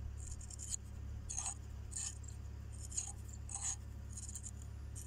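Light metallic clinks and scrapes, five or six spread over the few seconds, as a small splined steel gear is worked into the bearing of a HAMM 311 roller's crown-and-pinion housing. Under them runs a steady low hum.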